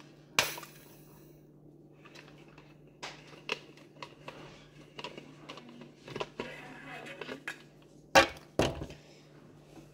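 Hard objects being handled and set down: a sharp knock about half a second in, light clicks and rustling through the middle, and two louder knocks close together near the end, over a faint steady low hum.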